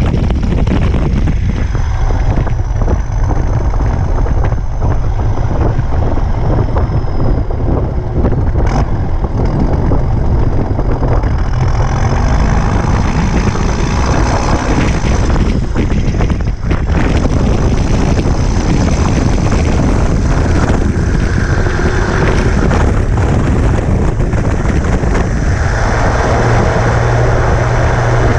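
Massey Ferguson 8130's straight-piped, turbocharged Perkins 1006.6 six-cylinder diesel running loudly as the tractor drives along, heard from beside the open exhaust stack.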